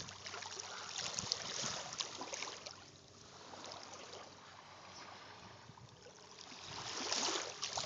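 Shallow water washing gently on a sandy shore, a steady hiss of moving water that swells again near the end.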